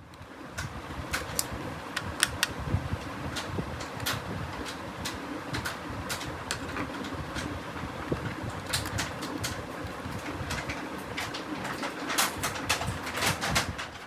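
Scattered sharp clicks and taps, some louder near the end, over a steady low hum.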